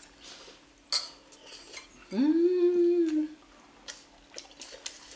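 Cutlery and dishes clinking during a meal, with one sharp clink about a second in. About two seconds in comes the loudest sound: a drawn-out vocal sound that slides up in pitch and holds for about a second.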